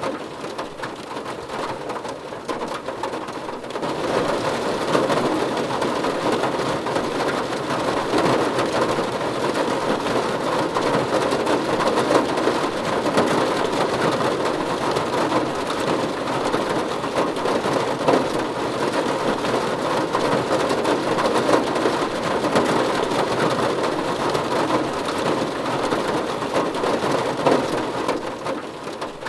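Steady rain falling, a continuous hiss and patter, growing heavier about four seconds in and easing a little near the end.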